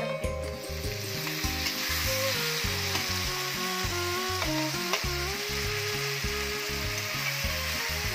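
Sliced tomatoes dropped into hot oil over browned fried onions in a metal kadai, sizzling steadily. The sizzle swells about half a second in as the tomatoes land. Near the end a metal spatula stirs them through the pan.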